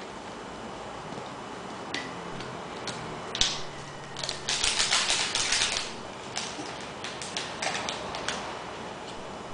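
Hands handling plastic and foil packaging: clicks of a plastic bottle cap being unscrewed and set down, then about a second and a half of loud crinkling near the middle as a foil powder sachet is handled, followed by more scattered clicks.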